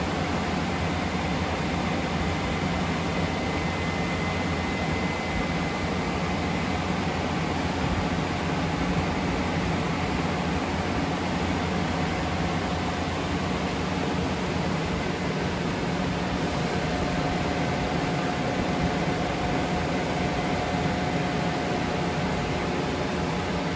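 Grow-room ventilation fans running: a steady whoosh of moving air with a low hum and a faint high whine over it.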